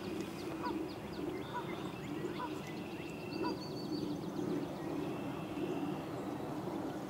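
Distant ducks and geese calling in a continuous din, with small songbirds singing thin whistled notes and trills over it.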